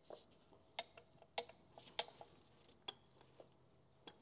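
Light, scattered metallic clicks and ticks, about ten in four seconds, some with a short ring. This is the Sunbeam 1000HP gearbox's selector mechanism being worked by hand while the gear interlock is tested.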